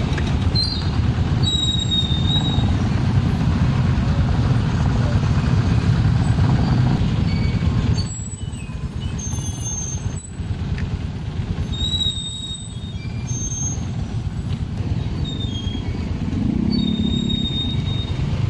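Motorcycle and tricycle engines running in slow traffic, a steady low rumble that eases somewhat about eight seconds in, with a few brief high squeaks now and then.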